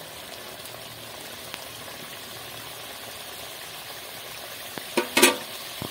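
Ridge gourd and fish curry simmering in a kadai, a steady bubbling hiss. About five seconds in, a spatula scrapes against the pan, twice in quick succession.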